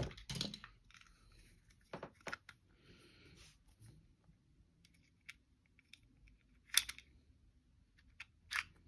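Scattered small plastic clicks and light rustling from handling Beyblade tops and a launcher, with the sharpest click about seven seconds in.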